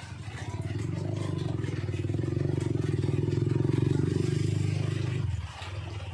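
A motor or engine runs at a steady pitch, growing louder over the first second, holding, then cutting off abruptly about five seconds in. The hiss of falling rain runs underneath.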